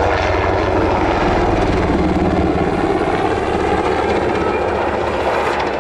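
Sikorsky UH-60 Black Hawk helicopter in flight: the steady beat of its main rotor blades over the hiss of its twin turboshaft engines. The low rotor beat weakens about halfway through.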